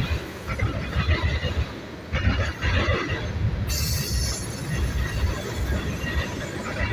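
Freight train cars rolling past with a low rumble and rattling. About four seconds in there is a brief high-pitched wheel squeal.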